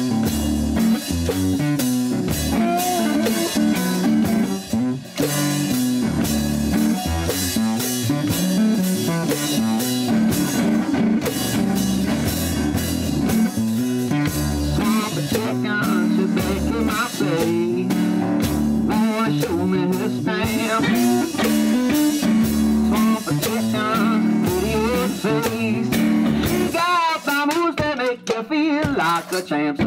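Live one-man-band blues rock: a capoed guitar played over a steady foot-driven beat on drum and cymbal.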